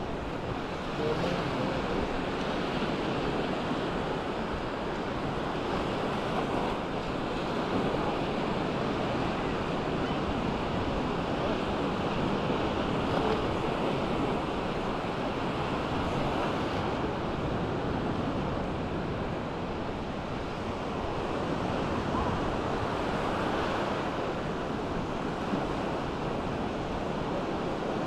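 Small sea waves breaking and washing up a sandy shore: a steady surf hiss, with wind on the microphone.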